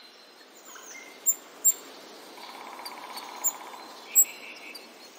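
Birdsong ambience: birds chirping over a steady, even hiss, with a few sharp, loud chirps standing out.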